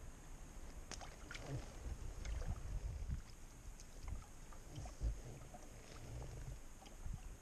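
Low wind rumble on the microphone with water lapping, and a few faint clicks about a second in from the rod and fixed-spool reel as a small fish is wound in.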